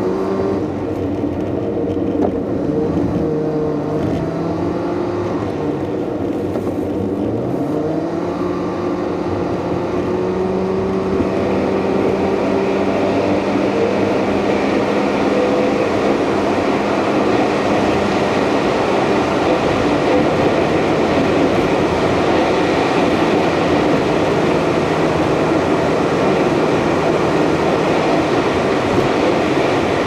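Car engine and tyre noise heard from inside the moving car; the engine note drops and climbs again within the first several seconds. From about ten seconds in, a louder, steady rush of road noise takes over as the car drives through a tunnel.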